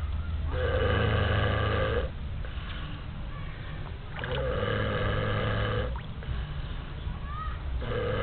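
Snoring: three long snores, each about a second and a half long, coming every three to four seconds over a steady low hum.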